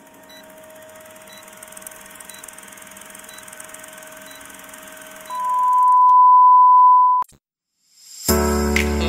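Old-film countdown leader sound effect: a steady hiss with a faint tick about once a second, then a loud, steady beep of about two seconds that cuts off suddenly. After a short silence, music starts near the end.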